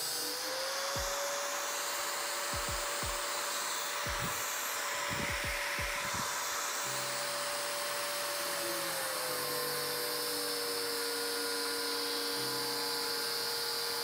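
Angle grinder with a cut-off disc cutting sheet metal: a steady motor whine over the hiss of the disc. The pitch rises a little just after the start and dips lower about nine seconds in.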